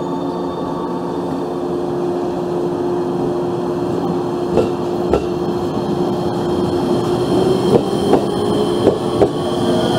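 E257 series electric train pulling away from the platform and accelerating, its traction equipment giving a steady hum with a held tone. From about halfway through, the wheels clack over rail joints, the clacks coming closer together as it speeds up, and faint rising tones begin near the end.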